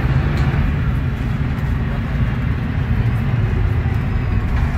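A Mercedes-Benz O500U city bus's OM936LA Bluetec 6 six-cylinder diesel engine, running steadily while the bus is underway, heard from inside the passenger cabin. A low, even engine drone is mixed with road noise.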